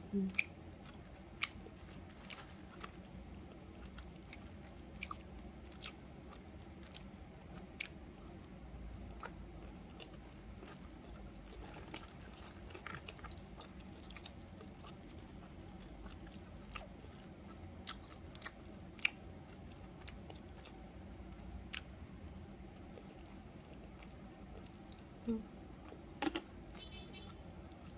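A person chewing a mouthful of tteokbokki rice cake with the mouth closed, quietly, with scattered small wet mouth clicks.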